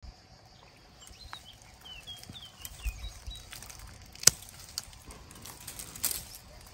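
A hand rustling through the narrow-leaved branches of a shrub, with one sharp snap about four seconds in and a longer crackling rustle near the end. A bird chirps a few short notes in the first few seconds.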